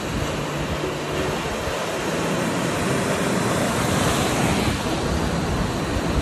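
Waves breaking and washing through a surf wave pool, a steady loud rush of surf with wind on the microphone, swelling a little about four seconds in.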